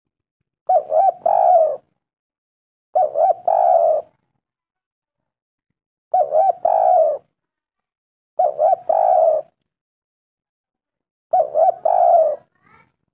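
Spotted dove (tekukur) cooing. Five three-note phrases about every two and a half to three seconds, each with two short coos and a longer third one.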